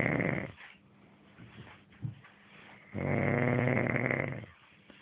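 A man snoring in his sleep. The end of one snore fades out about half a second in, and a second long snore comes about three seconds in.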